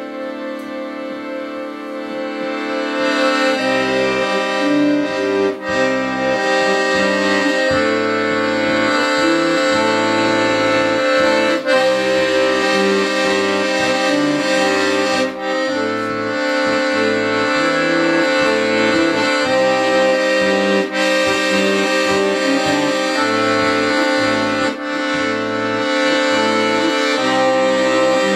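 Accordion playing the instrumental introduction to a song. It opens on a held chord, and from about three and a half seconds in a rhythmic bass-and-chord accompaniment joins underneath.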